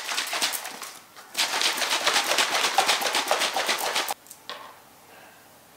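Shaker bottle of milk and whey protein powder being shaken hard, the liquid sloshing and clacking in a fast, even rhythm. A short shake comes first, then steady shaking that stops about four seconds in.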